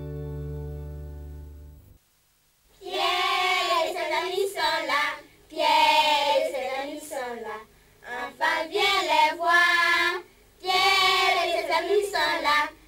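A held instrumental chord that cuts off about two seconds in, then children singing a theme song in French in short phrases with brief pauses between them.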